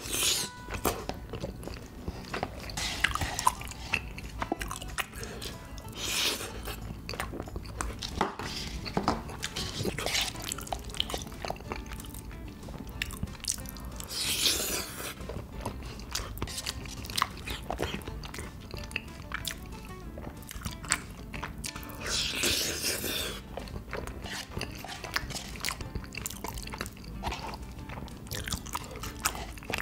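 Close-miked wet chewing of chewy rice cakes and noodles in thick sauce, with many small mouth clicks and a few longer slurps.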